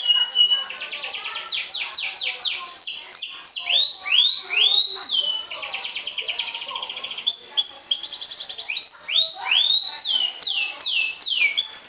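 Domestic canary singing a continuous song of fast rolling trills, alternating with runs of whistled notes that sweep downward in pitch.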